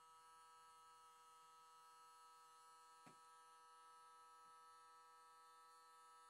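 Near silence: a faint steady electrical hum, with one faint click about halfway through.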